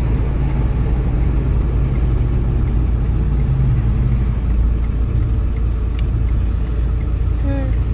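Steady road and engine noise inside a moving car's cabin, mostly a low rumble. A voice briefly starts near the end.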